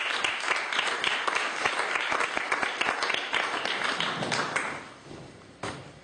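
Audience applauding, a dense patter of many hands clapping that thins and dies away about five seconds in, with one last clap shortly after.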